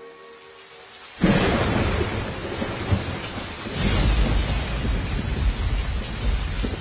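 Thunderstorm sound effect: a clap of thunder breaks in suddenly about a second in, then heavy rain hisses steadily, with a deeper roll of thunder swelling about four seconds in.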